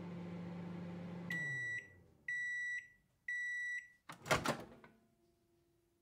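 Microwave oven finishing its cycle: the running hum winds down, then three beeps about a second apart signal that it is done, followed by a short clatter as the door is opened.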